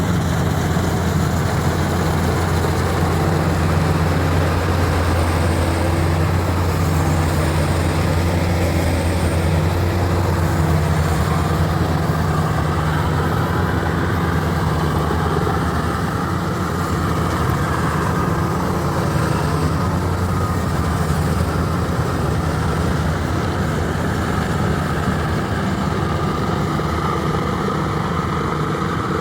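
Maxxi Bimo 102 rice combine harvester's engine running steadily, a constant low hum with mechanical noise on top, as the machine works a dry paddy field.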